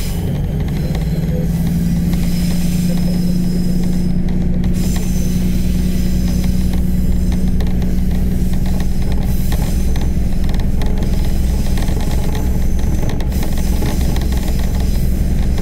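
Diesel railcar heard from inside while it travels under power: the engine note steps up about a second in and then holds steady, over the low rumble of wheels on the rails.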